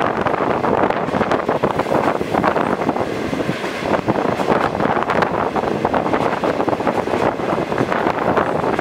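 Passenger train running along the track, heard from an open carriage window: wind buffets the microphone over the steady rumble and dense rattling clatter of the carriage.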